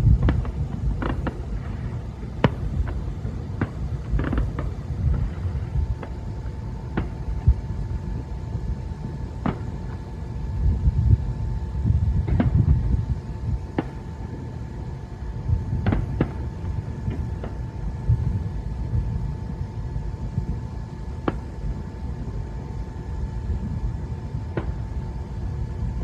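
Thousands of distant fireworks blending into a continuous low rumble that swells and eases, with single sharp cracks and bangs popping out of it every second or so.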